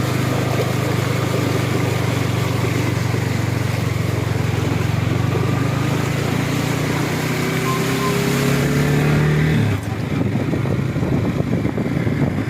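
Motorcycle engine running steadily, its pitch rising gently for a few seconds before the engine note stops abruptly just under ten seconds in. A rougher, uneven noise follows.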